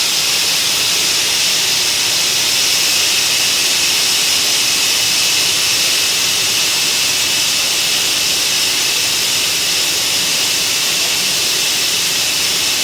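CNC cutting torch running a cut, a loud, steady hiss with no breaks.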